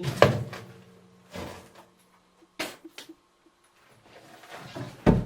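Scattered knocks and clunks of wood and tools being handled, with a louder thump near the end.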